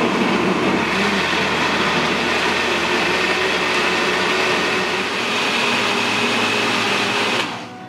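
Electric blender running steadily, puréeing a liquid chicken marinade of soda, ketchup and soy sauce with chopped lemongrass, onion, ginger and garlic. Its pitch rises slightly about two-thirds through, and it is switched off near the end.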